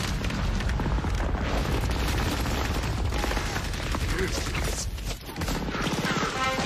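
War-film battle soundtrack: rapid rifle and machine-gun fire over a heavy low rumble of explosions. Music comes in near the end.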